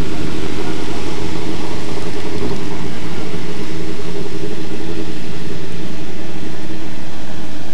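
Rally car engine running as the car drives up a hillclimb course through a tight bend, a steady loud engine drone.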